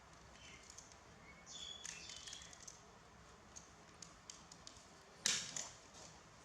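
Quiet handling noise of a diaper being put on a small pet: a few faint high squeaks in the first two seconds, scattered light clicks, and one loud sharp rustle about five seconds in.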